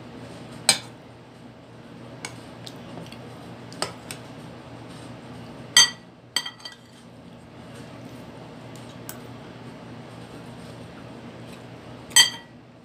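A metal spoon clinking against a ceramic bowl and plate: a few sharp taps, the loudest ringing briefly about a second in, near the middle and just before the end, over a steady low hum.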